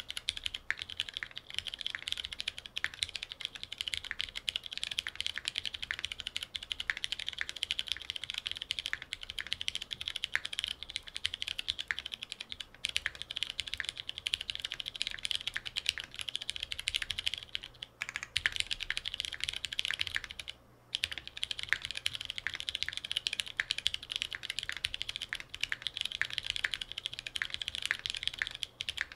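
Mechanical keyboard being typed on steadily and fast: lubed Butter Brown switches and lubed Whipped Cream modifier switches under GMK Striker ABS keycaps, on a half aluminum plate with no sound dampening. The keystrokes come many per second, with a short pause about two-thirds of the way through.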